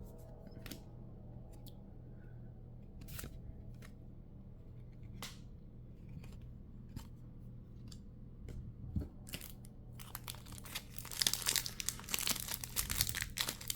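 Foil wrapper of a Pokémon mini booster pack being handled with a few light taps and clicks, then, from about ten seconds in, crinkled and torn open in a dense burst of crackling. A low steady hum lies underneath.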